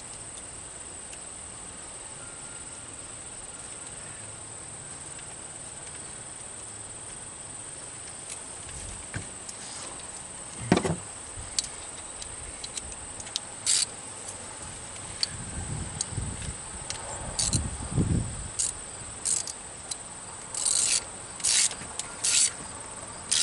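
Steady high chirring of crickets throughout. About a third of the way in, scattered knocks, clicks and short scraping sounds of metal hand tools begin as battery cable terminal ends are crimped down with a socket, with a few heavier thuds in the middle and a run of short scrapes near the end.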